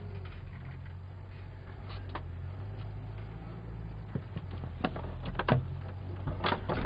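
A 4x4's engine running steadily, heard from inside the cab, as it creeps along an overgrown track. From about four seconds in, a few sharp knocks and snaps as branches strike and scrape the bodywork and windscreen.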